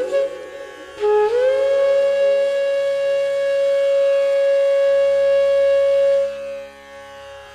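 Background instrumental music: after a quiet first second, a flute slides up into one long held note over a soft steady drone, which drops away near the end.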